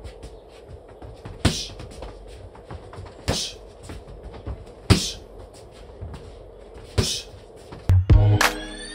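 Boxing-glove jabs smacking into a focus mitt: four sharp hits, roughly two seconds apart. Music with a heavy beat starts near the end.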